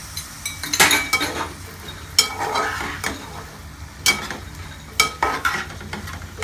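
A spoon stirring and scraping cubed potatoes and onions in a pan of hot oil, with four sharp clinking scrapes against the pan over a faint sizzle of frying.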